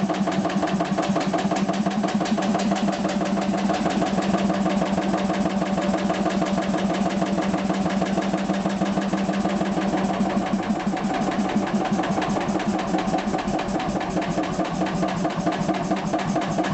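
Kelly and Lewis H1 two-stroke hot-bulb stationary engine running steadily, its exhaust a fast, even train of beats over a steady hum.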